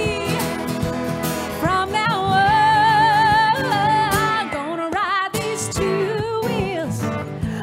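Live country song: a singer holds a long note with vibrato over guitar accompaniment.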